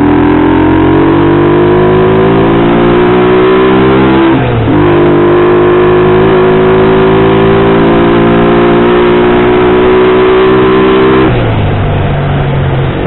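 1999 Honda CG Titan's single-cylinder 125 cc four-stroke engine running under way. Its pitch rises, drops at a gear change about four and a half seconds in, then climbs slowly and holds. It falls to a lower steady note near the end as the throttle is eased.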